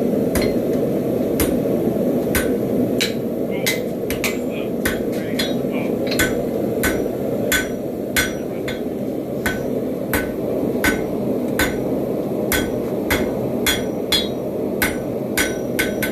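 Hand hammer forging a hot railroad spike on a Hay Budden anvil: a steady run of blows, about three every two seconds, each with a short metallic ring. A steady low rushing noise runs underneath.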